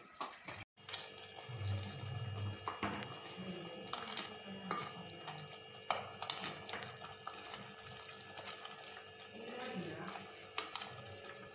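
Crab curry simmering in a clay pot on a gas burner, a steady bubbling hiss, with a few sharp clinks of a steel lid and spoon on the pot, one about halfway through as the lid goes on.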